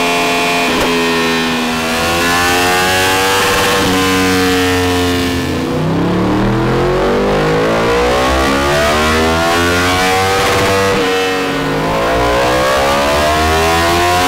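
Yamaha MT-10's crossplane inline-four, fitted with a full Akrapovič exhaust, revving hard under load on a motorcycle dyno. The revs climb steadily, drop back, and climb again three times.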